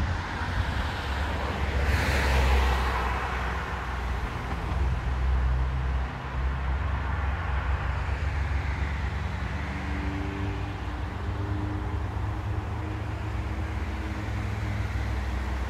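Steady outdoor rumble of road traffic, heaviest in the low end, with a louder hiss of a passing vehicle about two seconds in.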